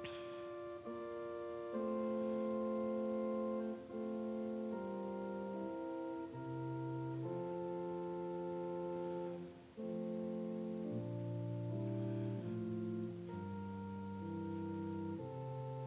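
Slow keyboard music of held chords, each changing every second or two, played as background music for a time of silent prayer.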